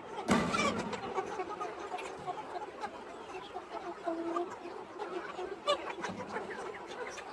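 A flock of free-range chickens clucking and calling in short scattered bursts, with one sudden louder sound just after the start.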